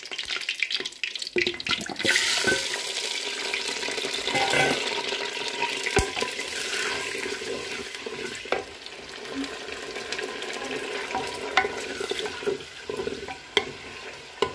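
Raw chicken pieces going into hot oil in a clay handi: a loud sizzle starts suddenly about two seconds in and slowly eases. A wooden spoon stirs the pieces and now and then knocks against the clay pot.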